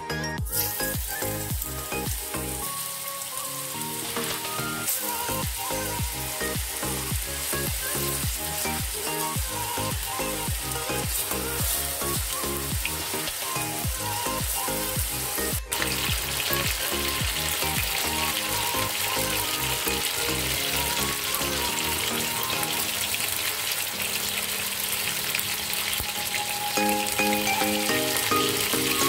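Marinated chicken pieces frying in butter in a pan, sizzling steadily, under background music with a steady beat.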